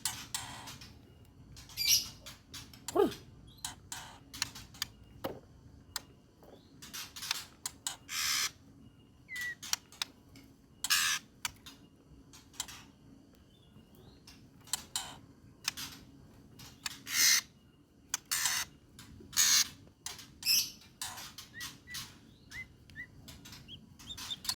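White-rumped shama (murai batu) singing in a heated mood: repeated short bursts of rapid, sharp staccato notes (the 'trotol' style), with a few small chirps in between.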